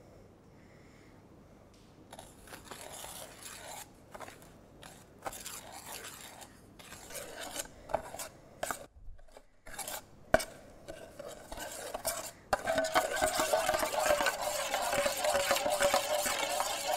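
A metal spoon scraping and clinking against a stainless steel pot as it stirs instant coffee, sugar and water for Dalgona coffee, in short scattered strokes starting about two seconds in. About two-thirds of the way through it turns into a continuous, louder scraping as the mixture is beaten fast.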